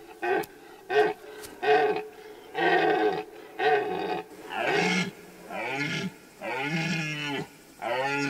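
Red deer stag roaring during the rut: a few short grunts, then about six longer hoarse roars that fall in pitch, each most of a second long. It is a rutting stag's call, announcing his dominance and warning off rivals from his hinds.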